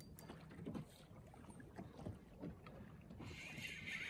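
Faint water lapping against a small boat's hull, with light wind and a few small clicks.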